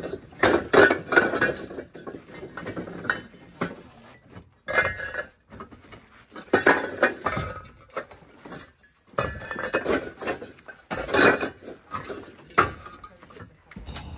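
Hollow fired-clay bricks clinking and knocking against each other as they are handed down from a truck bed and stacked, in irregular bunches of clatter every few seconds.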